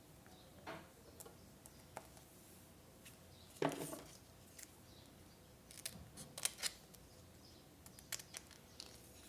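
Paper-craft supplies being handled for scrapbooking: scattered light clicks and snips, with a louder knock and rustle about three and a half seconds in and a quick run of clicks around six seconds.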